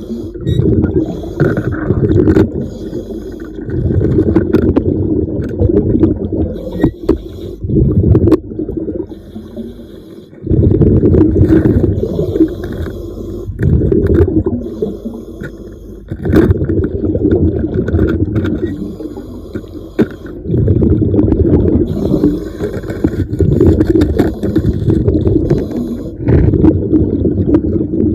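A diver breathing underwater through a diving regulator: exhaled bubbles rumble loudly in bursts of one to three seconds, with quieter gaps between them for the in-breaths.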